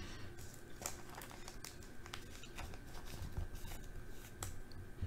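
Faint crinkling and light clicks of a clear plastic card sleeve as a thick jersey trading card is handled and slid into it.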